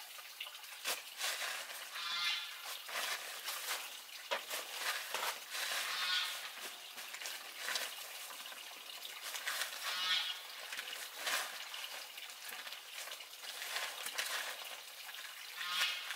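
Fresh green leaves and stems being cut and handled on a tarp: a run of crisp snaps and crackles with leaf rustling. A short animal call repeats about every four seconds.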